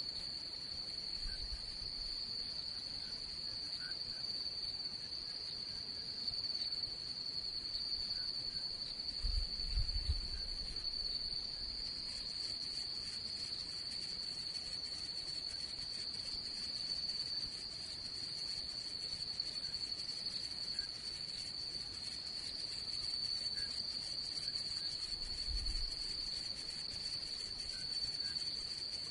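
Steady high-pitched trilling of night insects, unbroken throughout. A few low bumps sit underneath it, the loudest about a third of the way in.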